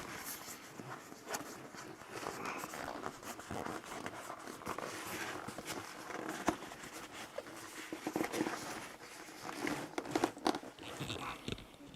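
Handling of a new fabric camera sling bag: irregular rustling and crinkling with scattered clicks and scrapes, as its zippers and parts are worked.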